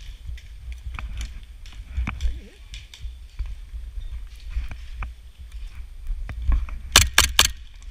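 Airsoft player moving across the field: scattered footsteps and light clicks over a low rumble on the microphone. About seven seconds in comes a quick burst of three or four sharp cracks, close airsoft gunfire.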